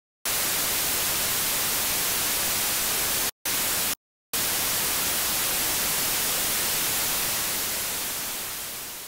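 Steady hiss of static, like white noise, that drops out twice for a moment a few seconds in, then fades out near the end.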